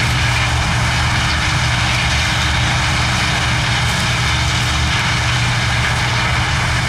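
Combine harvester running steadily under load while harvesting corn: a constant low engine drone under the dense whir and rush of the threshing and unloading machinery.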